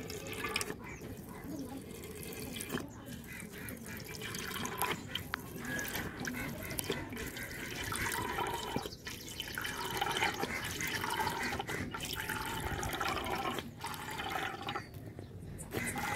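Cooking oil poured in a thin stream from a plastic bottle into an aluminium kadai, trickling and splashing into the growing pool of oil. The pour grows louder in the second half, with a couple of brief breaks.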